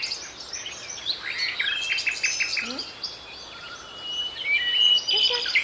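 Budgerigars chirping and warbling, with a quick run of chirps about two seconds in and a thin held whistle near the end.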